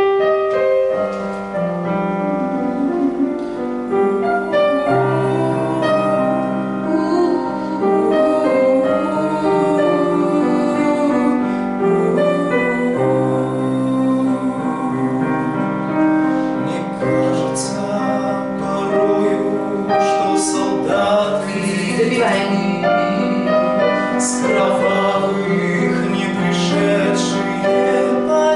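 Song accompaniment with piano playing steadily, a backing track set a tone lower to suit a tenor.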